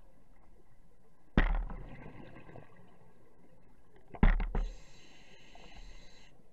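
Scuba diver breathing through a regulator underwater: two gushes of exhaled bubbles about three seconds apart, the second followed by a steady high hiss of inhaling that stops shortly before the end.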